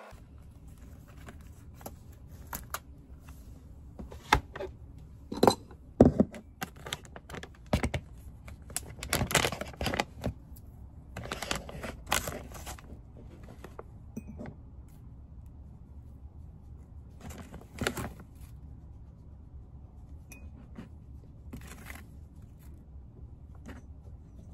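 A plastic Milo powder pouch being handled, rustling and crinkling, among a string of sharp knocks and clicks as a ceramic mug and metal spoon are handled on a desk. The loudest knocks come about four to six seconds in.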